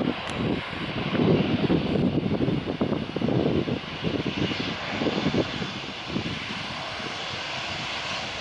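Airbus A320-family jetliner's engines running as it rolls along the runway, a steady jet rush overlaid with uneven gusty buffeting from wind on the microphone.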